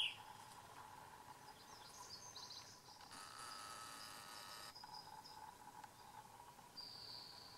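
Faint outdoor ambience: steady insect chirring, with a short bird chirp right at the start and a few more high chirps about two to three seconds in.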